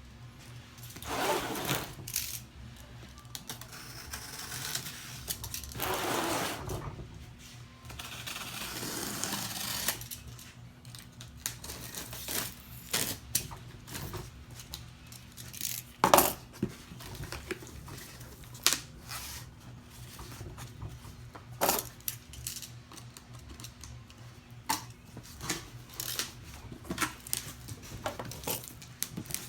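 Cardboard shipping box being opened and unpacked by hand: several long rasps of tape and cardboard being torn and slid apart, then a run of sharp knocks and taps as the packaging is handled.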